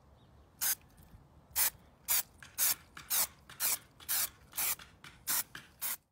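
Aerosol can of textured stone-effect spray paint hissing in about ten short bursts, roughly two a second, as a base coat goes onto an MDF model.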